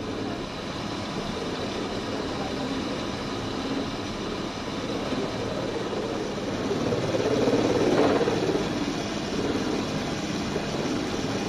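Working watermill machinery running: the turning gear wheels and spindles make a steady mechanical rumble that swells briefly about eight seconds in.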